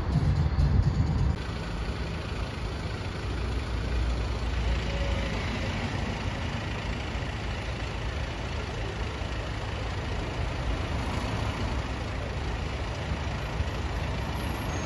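Fire engine's diesel engine idling steadily, a low hum under street background noise.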